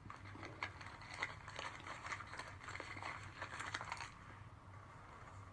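A quick, irregular run of small clicks and rustles for about four seconds, then quieter, over a faint steady low hum.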